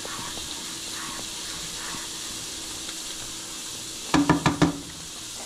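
Butter-and-cream sauce sizzling in a nonstick skillet as a spatula stirs it. A little after four seconds in comes a quick run of about five knocks, louder than the sizzle.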